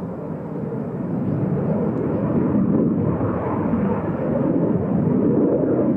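Jet noise from a Boeing EA-18G Growler's twin turbofan engines as it flies a gear-down approach to land. It is a steady rumbling roar that grows louder over the first couple of seconds as the jet closes in.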